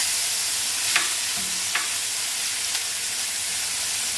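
Lamb chops searing fat side down in a pan on high heat: a steady sizzle with a few sharp crackles from spitting fat.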